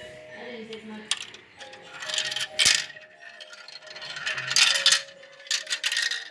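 A marble rattling and clattering down a plastic marble run, in bursts about two seconds in, around four and a half seconds in and near the end, with one sharp click just before three seconds in.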